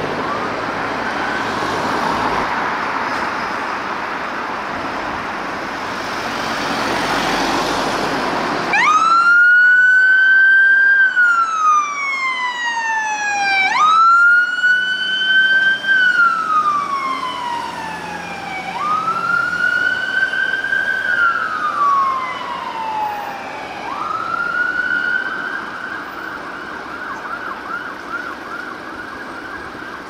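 A loud rush of passing vehicle noise with a siren under it. About nine seconds in, a clean wailing siren takes over, rising quickly and then falling slowly, about once every five seconds. Near the end it settles into a held high tone.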